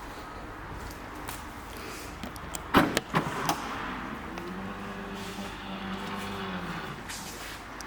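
A few sharp clicks and knocks inside a Jaguar XJ, then a small electric accessory motor whining steadily for about three seconds before it stops.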